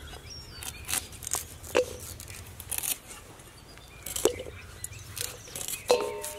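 Ivy gourds being sliced by hand with a small knife, each cut a sharp crisp click, with light metallic clinks as pieces drop into a stainless steel bowl, about six irregular strokes a second or so apart. Faint bird chirps are heard behind.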